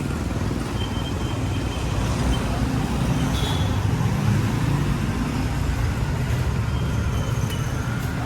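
Steady rumble of motor vehicles and road traffic, strongest in the low range and without a break.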